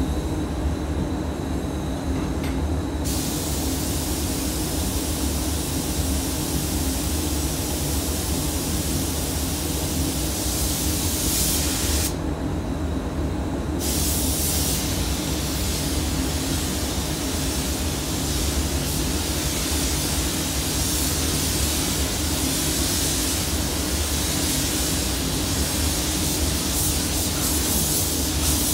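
Paint spray gun spraying basecoat onto a car panel. The spray starts about three seconds in, stops briefly near the middle, then resumes. Under it runs the steady low drone of the spray booth's ventilation.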